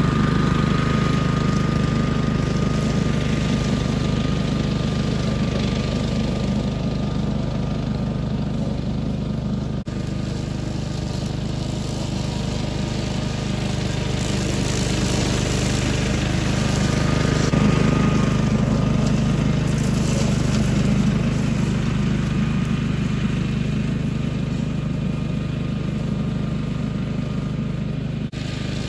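Billy Goat hydraulic walk-behind brush hog running steadily under load as it cuts through tall grass and brush.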